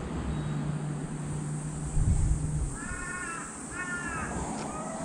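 A crow cawing twice, about three and four seconds in, over a low steady hum that stops about halfway through.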